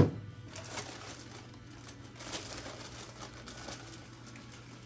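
A sharp thud at the start, then faint, irregular rustling and crinkling of packaging as the parts of a boxed horn kit are unpacked and handled.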